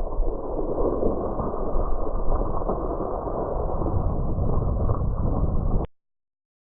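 Loud, muffled rushing rumble without a clear pitch, cutting off abruptly about six seconds in and followed by silence.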